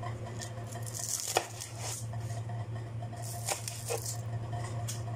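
Kitchen knife chopping spring onions on a wooden cutting board: a few irregular knocks of the blade on the board, the sharpest about a second and a half in, over a steady low hum.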